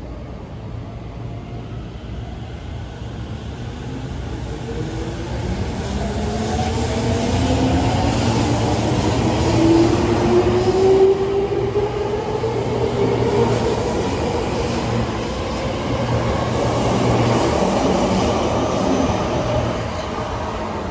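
Tokyo Metro 05 series electric train pulling out of the station. Its traction motors' whine starts a few seconds in and climbs steadily in pitch as the train accelerates, over the rumble of the wheels on the rails as the cars pass close by. It levels off into steady rolling noise in the second half.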